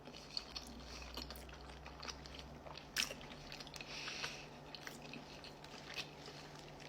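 Close-up chewing of a soft boiled egg topped with pesto and cheese: faint wet mouth clicks and smacks, one sharper click about three seconds in.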